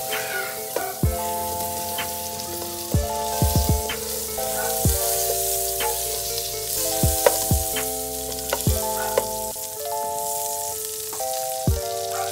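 Butter sizzling as it melts and foams in a hot nonstick frying pan, pushed around with a silicone spatula, under background music with held chords and a thudding beat.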